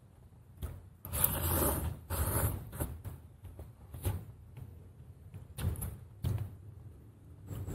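A person slurping instant cup noodles: two long, loud slurps about a second in, then several shorter slurps and sucks.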